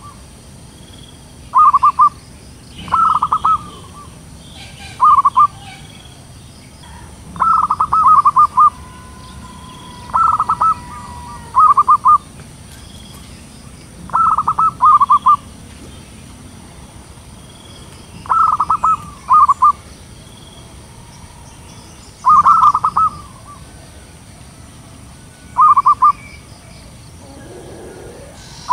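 Zebra doves cooing: short bursts of quick, stuttering coo notes, repeated every two to four seconds, several bursts coming in close pairs.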